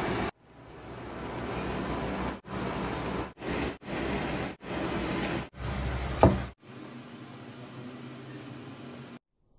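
Kitchen noise cut into short clips: a steady hiss that stops and starts abruptly every second or so, with one sharp knock about six seconds in, then a quieter steady hiss that cuts off suddenly near the end.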